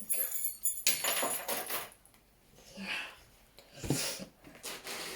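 Keys and a metal trolley-coin token on a key ring jangling and clinking as they are handled, with a single thump about four seconds in.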